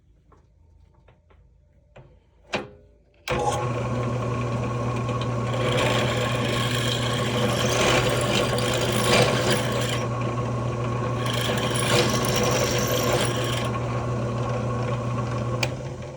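Power drill running with its bit cutting into a solid aluminum hand wheel: a steady motor hum and cutting noise that starts abruptly a few seconds in, after a few light clicks, and winds down near the end.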